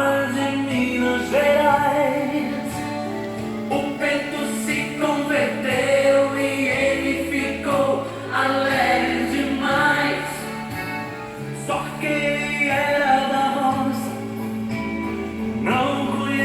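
Background music: a song with sung vocals over a steady instrumental accompaniment with sustained bass notes.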